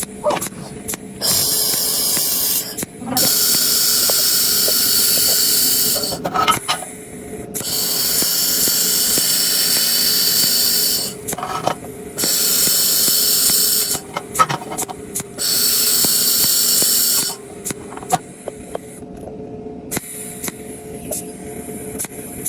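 Welding torch hissing in repeated bursts of a few seconds each, starting and stopping abruptly, with short clicks and crackles in the gaps between bursts.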